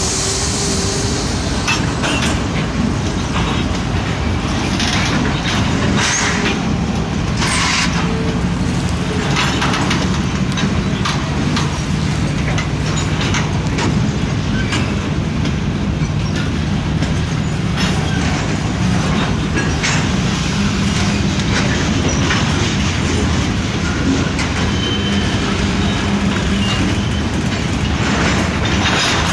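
Diesel freight train rolling slowly past: the locomotives' engines drone steadily under the rumble of the wheels, with scattered clicks and clanks from the freight cars passing over the rails.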